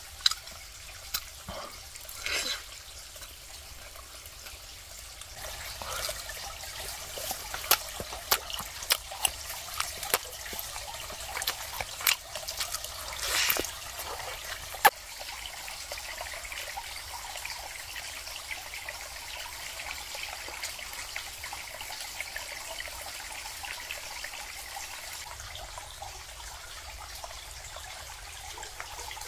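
Water trickling steadily, with scattered sharp clicks and knocks during the first half.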